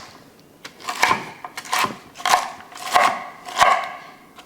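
Knife slicing through a purple cabbage, five cuts about two-thirds of a second apart.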